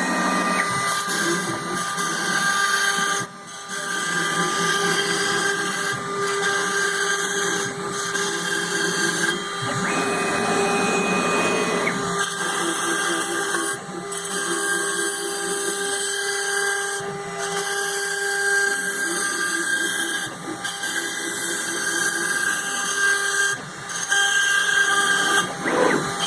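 Marabu II CNC router cutting plywood at a fast feed rate: the spindle whines steadily over the noise of the bit cutting the wood, with a few brief dips in loudness.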